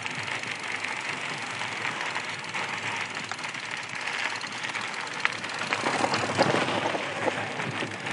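An electric fat-tire mountain bike riding over a dirt and gravel road: steady tyre rolling noise with small scattered ticks of grit. It grows louder and rougher about six seconds in.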